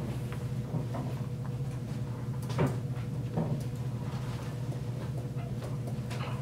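Room tone: a steady low hum with a faint steady higher tone, and a couple of brief soft knocks about two and a half and three and a half seconds in.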